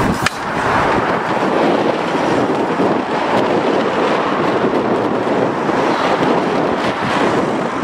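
Steady rushing outdoor noise: road traffic on a dual carriageway mixed with wind on the microphone. A brief click sounds just after the start.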